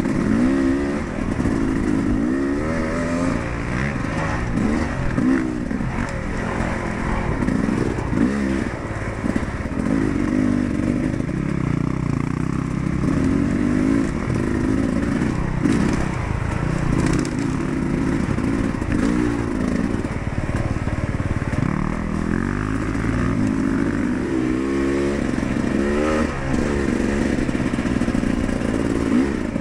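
Dirt bike engine being ridden, its pitch rising and falling over and over with the throttle as the rider climbs and eases off.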